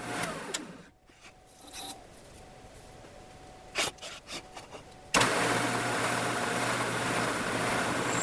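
Benchtop drill press motor winding down, its pitch falling over about a second, then a few knocks as the aluminum plate is handled. About five seconds in the press is switched on and runs steadily with a hum, drilling through the aluminum plate.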